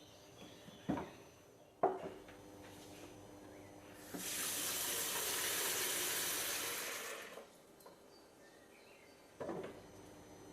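Water running in a hissing stream for about three seconds, starting suddenly and fading out, with a few sharp clicks and knocks before and after it.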